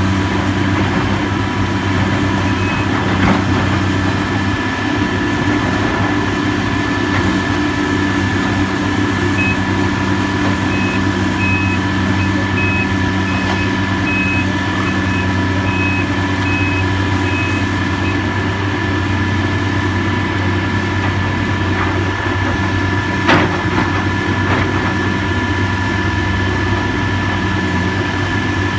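Heavy construction machine's engine running steadily at a demolition site, with a reversing alarm beeping for several seconds in the middle. A couple of sharp knocks, the louder one about three-quarters of the way through.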